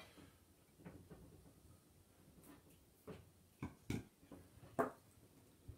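A few faint, separate clicks and knocks as paint containers and art materials are handled, the sharpest around the middle and toward the end.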